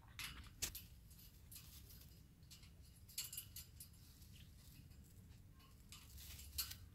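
A parrot's feet and claws scratching and gripping as it climbs about on a wooden perch covered with fleece: faint scratchy rustles, with a sharp click about half a second in and another near the end.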